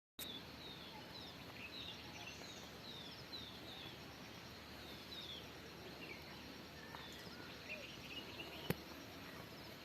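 Birds chirping over a steady outdoor background hiss: many short, falling chirps repeating throughout. A single sharp click sounds near the end.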